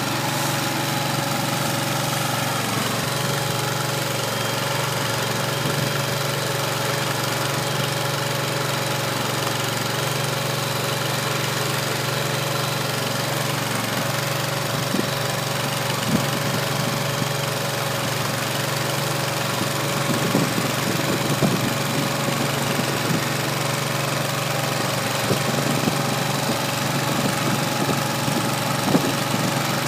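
Kohler 25 hp gas engine running steadily at an even speed, driving a small feed mixer that is churning hay. Short, sharp knocks break in now and then in the second half.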